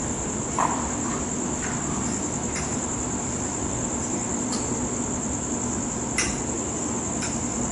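Crickets trilling steadily at night, one unbroken high-pitched trill over a low steady background noise, with a few short faint clicks about every second or two.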